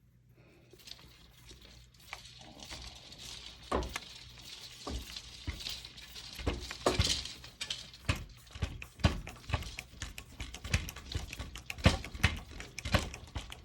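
Irregular small knocks, clicks and scrapes of hands working on wooden loom parts as a bumper is taken off one cloth support and fitted to another, busier in the second half.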